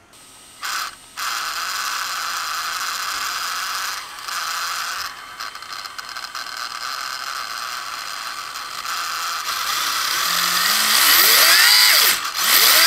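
An RC drift car's brushless motor and gear drivetrain spin the wheels on a stand under throttle in standard forward rotation. It makes a steady whir at first. Near the end the motor revs up to a rising high whine, cuts off briefly, then revs again; this is its top RPM with the motor timing working as set.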